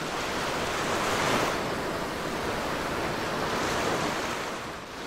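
Churning wake of a cruise ship: a steady rushing of foaming water that swells about a second in and again near the end, then eases.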